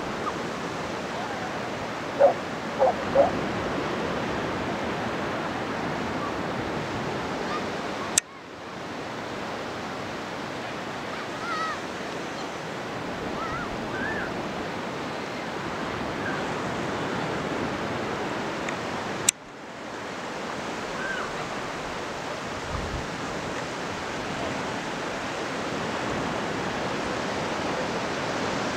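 Steady wash of low surf on a wide sandy beach. Three short loud calls about two to three seconds in and a few faint chirps later, and two sharp clicks, each followed by a brief dip in the sound.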